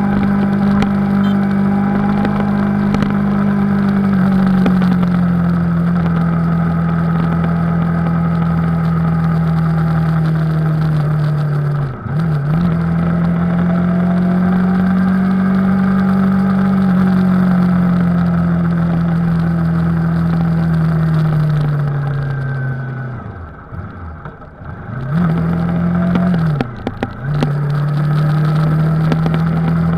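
Yamaha R3's 321 cc parallel-twin engine pulling steadily at road speed, heard from the rider's seat. About twelve seconds in the revs dip and recover briefly. Later the note falls and quietens as the bike slows, then climbs back with two short dips before running steady again.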